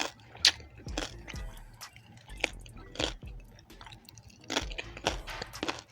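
A person chewing and crunching crispy pata, deep-fried pork leg with crackling skin, in irregular crisp crunches.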